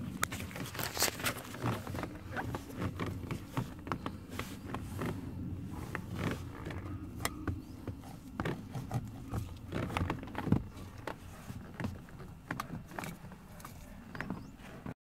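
Handling noise: irregular clicks, taps and rustles as a camera and a long thin screwdriver are moved about around a car's steering wheel and plastic trim. It cuts off suddenly near the end.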